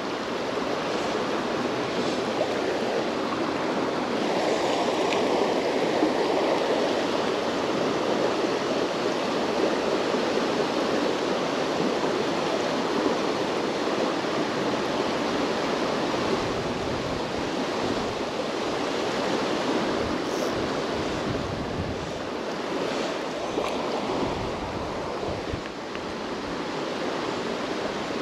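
A fast, shallow river run rushing over rocks: a steady wash of flowing water.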